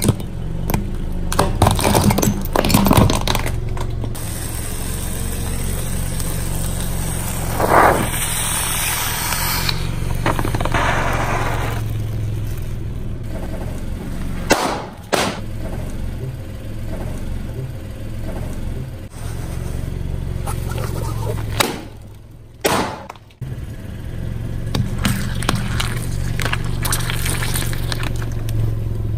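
Car engine running low and steady while objects crackle and snap as a tyre rolls over and crushes them. The crackling is densest in the first few seconds, with a short squeak about eight seconds in and a few sharp snaps near the middle and again about three-quarters through.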